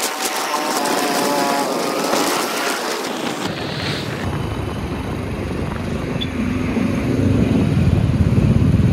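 Wind rushing over the microphone while riding a Hero Splendor motorcycle. About three and a half seconds in the wind noise falls away and the bike's single-cylinder four-stroke engine comes through as a low, pulsing exhaust note, which grows louder near the end.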